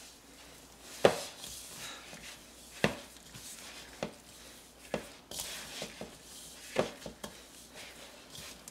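Hands pressing crumbly cornstarch cookie dough into a ball in a plastic mixing bowl: a soft rustle of crumbs with about six dull knocks at uneven intervals as the dough is pushed against the bowl, the loudest about a second in.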